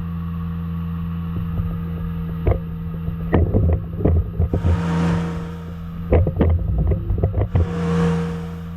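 Kubota diesel engine of a mini excavator running steadily, with clanks and knocks from the machine starting about two and a half seconds in, and two swells of hiss around five and eight seconds in.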